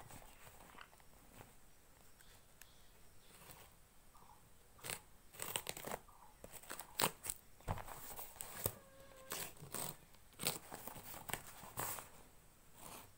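Clear plastic wrap and packing tape on a cardboard parcel crinkling and tearing as a razor blade cuts it open, in a run of short, sharp crackles starting about five seconds in.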